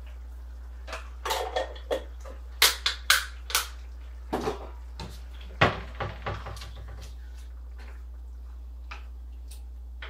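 Wooden spoon knocking and scraping against a skillet as a meat sauce is stirred: a scatter of sharp clacks, the loudest a few seconds in, then quieter taps.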